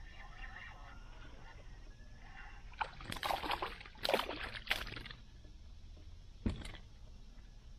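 A hooked bass splashing and thrashing at the surface beside a kayak as it is brought in, in a burst lasting about two seconds that starts about three seconds in. A single sharp knock follows a second and a half later.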